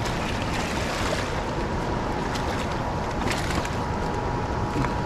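Steady rush of river current with wind on the microphone, and a hooked smallmouth bass splashing at the surface in the shallows as it is brought to hand.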